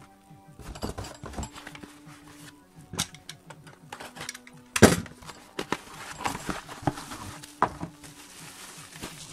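Cardboard packaging handled and opened by hand: scattered taps and knocks, one sharp knock about five seconds in, then rustling of cardboard flaps and bubble wrap.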